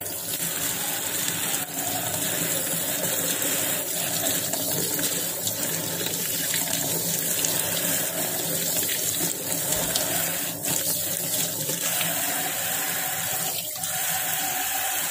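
Kitchen tap running in a steady stream, splashing over hands rinsing raw chicken innards and into a plastic colander in a stainless steel sink.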